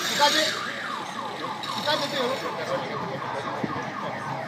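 Electronic siren yelping in fast repeated pitch sweeps, about four a second, over street traffic noise.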